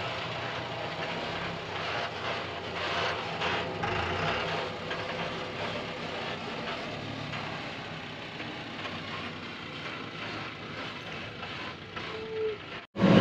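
Diesel engine of a loaded tipper truck pulling away on a dirt track, its sound slowly fading as it drives off. The sound cuts out for an instant near the end.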